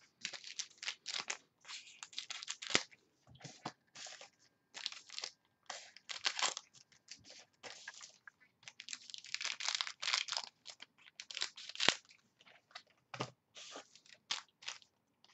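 Plastic wrapping crinkling and tearing in irregular bursts as a trading-card box and its packs are unwrapped by hand.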